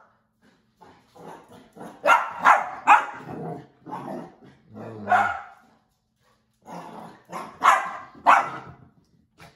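Bernedoodle puppy barking in an excited string of short yaps while running zoomies. The loudest barks come about two seconds in and again near the end, with a short pause between.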